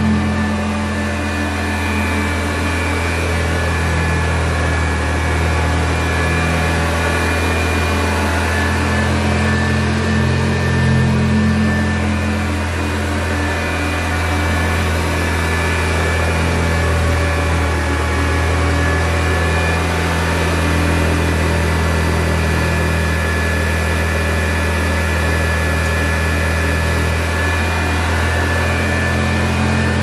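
A 1960 Hoover Convertible Model 31 upright vacuum cleaner running steadily while vacuuming: a loud, even motor hum with a thin high whine above it, swelling slightly in loudness now and then.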